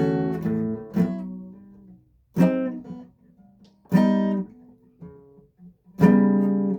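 Guitar chords struck one at a time and left to ring out: a chord fading over the first two seconds, then single strums about every second and a half, each decaying into a brief quiet gap, as the player tries out chords.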